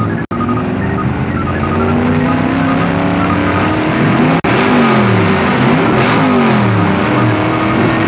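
Two supercharged, fuel-injected Chrysler Hemi V8 engines running loud and revving hard, the pitch climbing and falling again and again like a drag racer. The sound cuts out for an instant twice.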